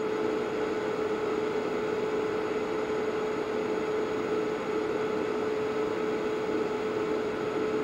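Barrel scanner club light running: a steady whirring hiss with a constant mid-pitched hum.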